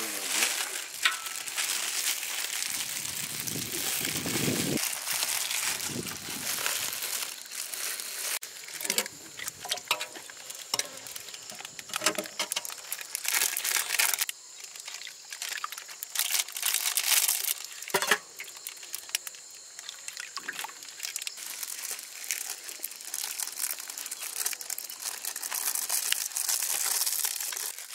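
Continuous crinkling and crackling with many scattered sharp clicks, louder in spells, with a short low rumble a few seconds in.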